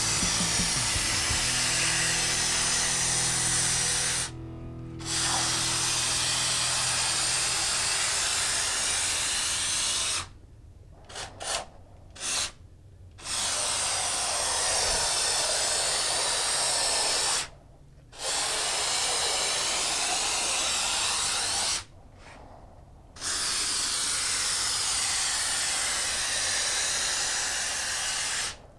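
Froth-Pak two-component spray foam gun spraying insulation foam: a loud, steady hiss that stops briefly as the trigger is released, about four seconds in, again around ten to thirteen seconds with a few short squirts, then near seventeen and twenty-two seconds.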